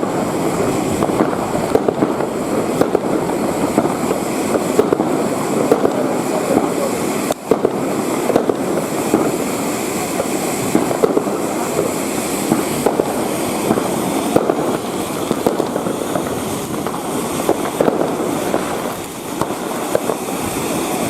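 Many fireworks and firecrackers going off at once, a dense, unbroken crackle of overlapping bangs with one short dip about a third of the way in.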